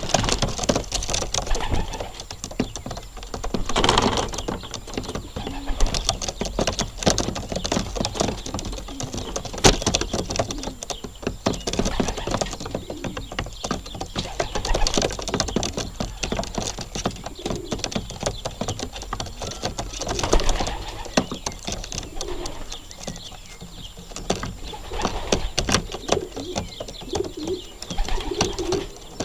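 Racing pigeons cooing close by, with many sharp taps as they peck at the loft floor.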